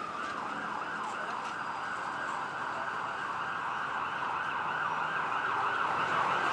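Emergency vehicle siren sweeping up and down in pitch over and over, growing louder.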